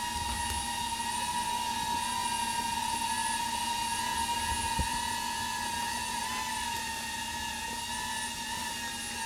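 Electric winch motor whining steadily with a slight waver in pitch, with one short knock about five seconds in.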